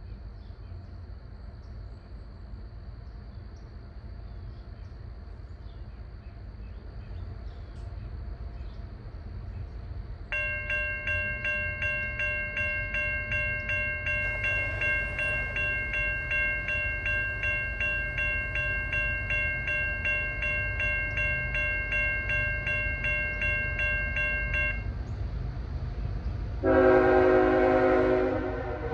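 A railroad crossing's warning bell starts ringing rapidly about ten seconds in as the flashers activate, and stops a few seconds before the end. Then an approaching CSX freight locomotive's air horn sounds one loud blast near the end.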